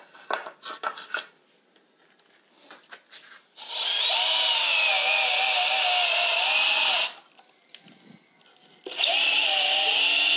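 Cheap 24 V DeWALT-branded cordless drill boring into 7-ply plywood in two runs of a few seconds each, the motor's whine wavering a little in pitch under load. A few light knocks come before the first run.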